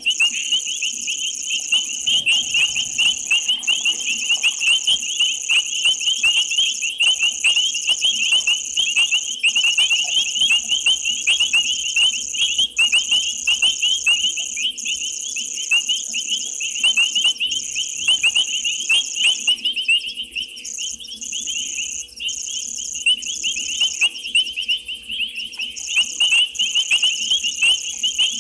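Night chorus of frogs and insects at a waterhole: a dense, rapid trilling of many frog calls with a steady high-pitched insect drone above it, broken by scattered clicks.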